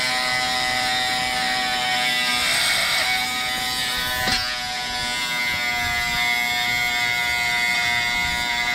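Cordless Dremel Lite rotary tool running at speed setting three with a round chainsaw sharpening bit grinding a chain's cutter tooth: a steady motor whine over a gritty grinding hiss, with a brief click about four seconds in.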